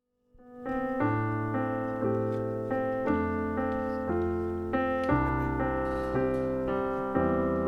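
Keyboard playing a slow worship-song intro: sustained chords with a bass line, changing chords about every second, fading in at the start.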